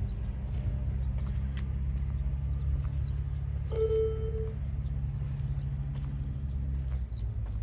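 An engine running steadily with a low, even rumble, its note changing slightly near the end, and a short clear note about four seconds in.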